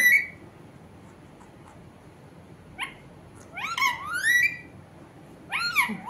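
Pet parakeet calling: a short rising squeak about three seconds in, then a quick run of rising and falling chirping squawks, with another call near the end.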